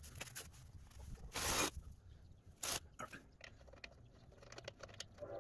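Hands working on the rear suspension under the car: a few short scrapes and clicks of metal parts being handled. The loudest scrape comes about a second and a half in and a shorter one near three seconds. A steady horn-like tone starts right at the end.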